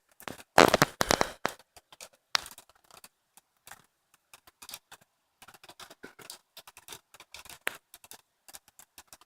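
Raindrops pattering as irregular ticks and crackles, busiest about a second in and sparser after.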